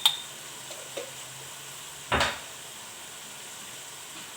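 Chicken, vegetables and calamari frying quietly in a paella pan, with a sharp click right at the start and a louder short knock about two seconds in.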